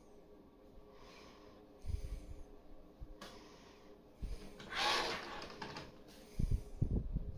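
The lid of a smart trash can opening, heard as a short noisy rush about five seconds in, followed by a few low thuds near the end.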